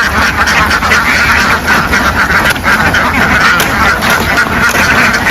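A large flock of domestic ducks quacking all together in a dense, unbroken chorus of overlapping calls.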